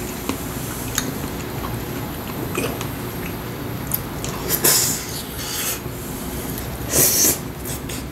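Close-up eating sounds: a man chewing mouthfuls of rice and braised mackerel, with a few light clicks of wooden chopsticks on the bowls and two short, louder mouth noises, one about halfway through and one near the end.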